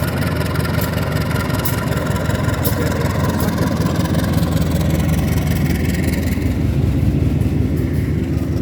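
A diesel-hauled commuter train with a CC201 locomotive pulls away from the station, its engine rumbling steadily with a running rattle from the train. The higher rattle thins out after about six seconds.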